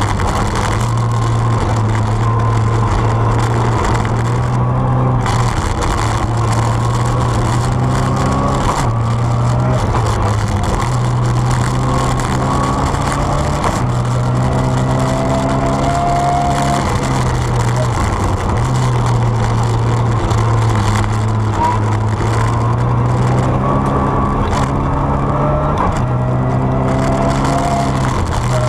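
Rally car engine heard from inside the cockpit at stage speed, its note climbing in pitch and dropping back every few seconds as the driver goes through the gears and lifts, over constant tyre and road noise.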